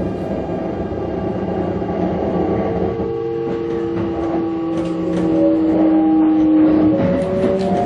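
Kintetsu electric train's motors and wheels as it pulls away and gathers speed, heard from the driver's cab: a whine of several tones rising slowly in pitch, with wheel clicks over rail joints and points becoming more frequent in the second half.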